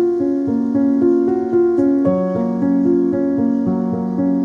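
Background piano music: a steady, flowing run of notes.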